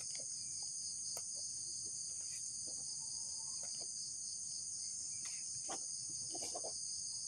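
Steady, high-pitched chorus of insects shrilling without a break, with a few faint ticks over it.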